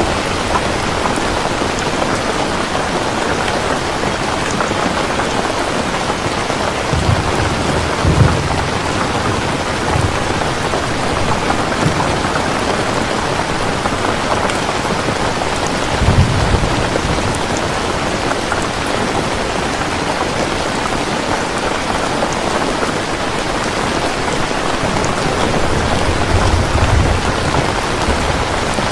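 Heavy rain pouring steadily, with low rumbles of thunder swelling up three times: about a quarter of the way in, around the middle, and near the end.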